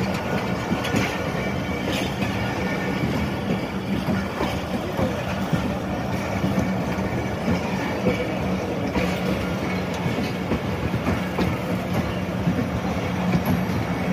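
Passenger coaches of a Pakistan Railways express rolling past close by, a steady rumble of steel wheels on the rails with occasional clacks as wheels cross rail joints.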